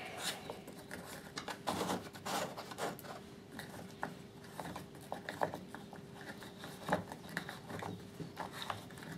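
Plastic side case of an Oregon electric chainsaw being worked loose by hand: faint, scattered clicks, taps and scrapes of plastic on plastic and metal.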